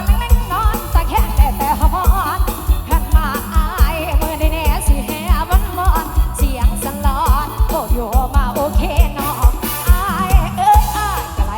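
Live lam sing band music: a steady, heavy kick-drum and bass beat under a wavering, ornamented melody.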